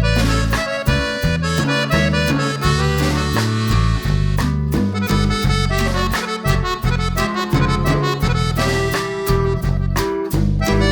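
Instrumental background music: a lively melody of quick changing notes over a bass line.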